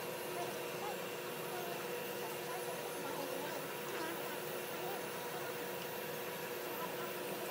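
Electric nail drill running at a steady speed with an even whine, its bit working along the edge of the big toenail.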